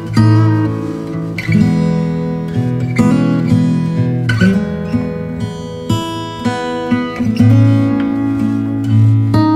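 Background instrumental music on a plucked string instrument, with strummed chords changing every second or so.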